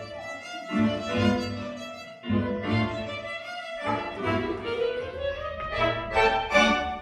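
Violin playing a tune in short phrases, with low notes beneath it and a slow upward slide about two thirds of the way through.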